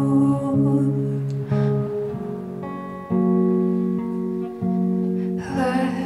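Music: guitar chords ringing and changing every second or so, with a voice coming in near the end and holding wavering notes.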